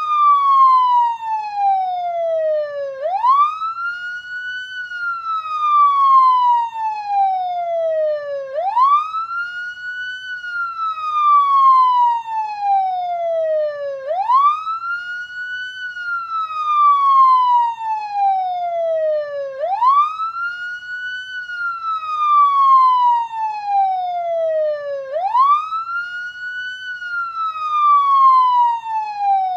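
Police siren sounding a slow wail: each cycle rises quickly for about a second and a half, then falls slowly for about four seconds, repeating about every five and a half seconds.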